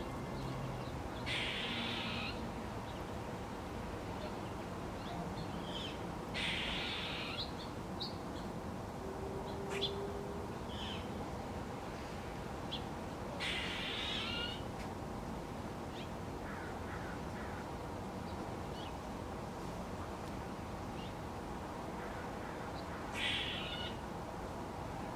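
Crows cawing four times, single harsh caws spread several seconds apart, with a few brief faint chirps from small birds between them over a steady outdoor background hiss.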